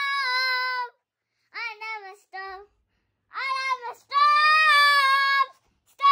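A young child singing unaccompanied in a high voice: a held note that ends about a second in, a few short notes around two seconds in, then long sustained notes with short silent pauses between them.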